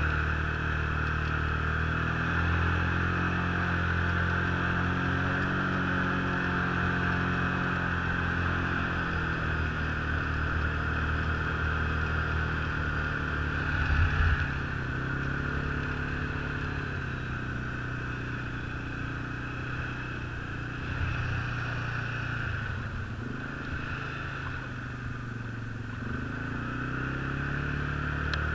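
Snowmobile engine running steadily under way on a packed snow trail, its track hissing and whining with it. There is a brief knock about 14 seconds in.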